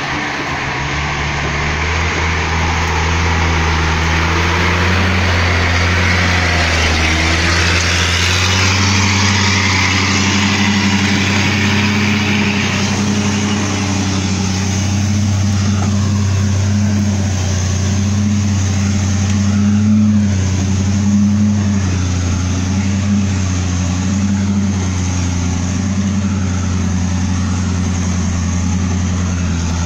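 Engine of an old flatbed log truck loaded with pine logs, running under load on a steep dirt forest track. A steady low engine note that steps up in pitch a few times in the first several seconds, then holds.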